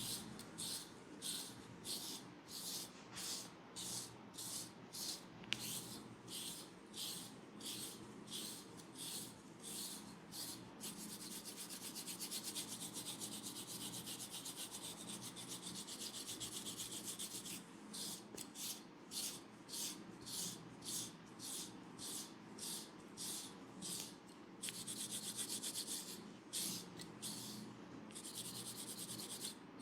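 Hands rubbing over a scalp and hair during a head massage, in brisk back-and-forth strokes about two a second. Twice the strokes give way for several seconds to fast, continuous rubbing.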